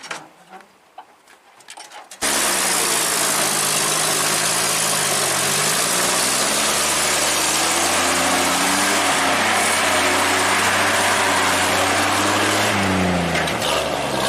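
ZIL-164 truck's side-valve straight-six engine running loud and steady. It comes in abruptly about two seconds in, after a few faint clicks.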